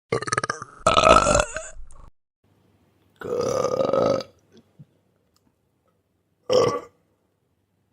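A series of human burps with silent gaps between them: two running together at the start, a longer, steadier-pitched one about three seconds in, and a short one near the end.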